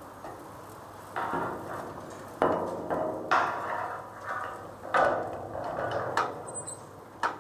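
Steel on steel: a structural steel beam and its wire-rope choker clanking and knocking as the beam is handled, about six sharp clanks with metallic ringing between them.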